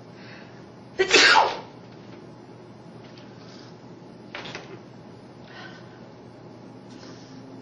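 A person sneezing once, loudly, about a second in, followed by a shorter, much quieter burst about three seconds later.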